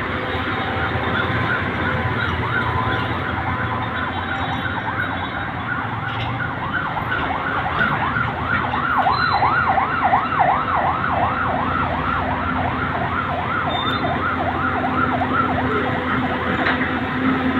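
Electronic siren sounding in fast repeated up-and-down sweeps, about three a second, growing louder toward the middle and then fading, over a steady engine running.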